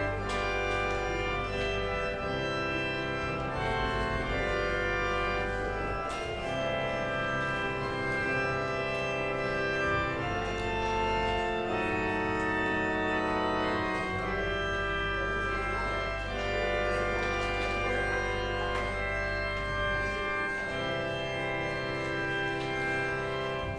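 Organ playing slow, sustained chords over held bass notes, stopping at the end.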